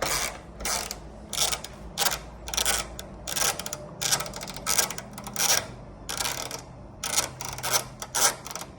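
Ratchet wrench clicking in short repeated strokes, about two a second, backing out a long hood latch bolt.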